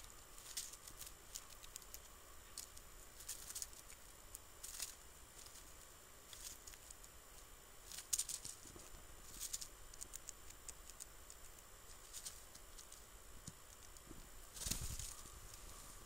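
Faint, irregular rustles and ticks in dry leaf litter, with a soft thump a little before the end.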